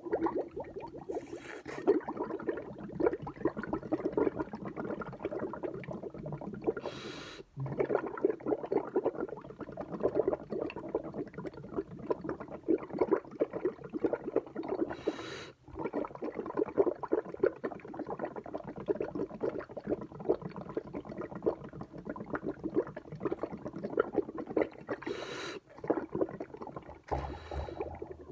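Milk bubbling and gurgling in a drinking glass as air is blown steadily through a drinking straw. The bubbling breaks off about five times for a short, sharp breath in.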